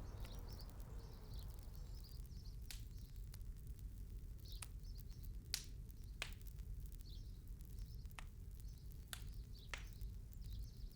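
Faint outdoor ambience: a steady low rumble of wind on the microphone, with small birds chirping faintly now and then and a few light clicks.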